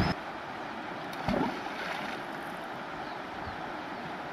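Shallow river running over rocks and small rapids, a steady rushing of water with some wind on the microphone. A brief low thump about a second in.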